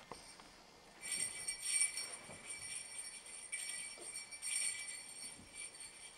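Sleigh bells jingling, starting about a second in and shaken in uneven surges.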